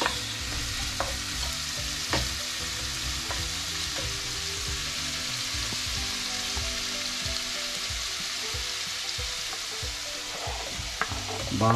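Julienned ginger sizzling steadily in melted margarine in a frying pan, with a few sharp clicks of a wooden spoon stirring against the pan.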